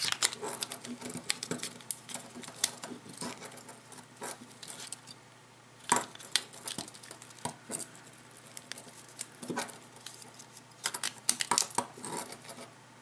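Scattered small clicks and taps of hard plastic and metal as a Samsung Galaxy Gear smartwatch is handled and fitted into its charging dock, with a sharper click about six seconds in and a quick run of clicks near the end.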